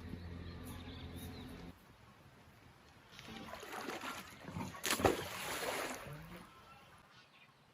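Water sloshing and splashing, with one sharp louder splash about five seconds in, as the baited plastic-pipe fish trap goes into the river. Before it, a steady low hum cuts off suddenly near two seconds in.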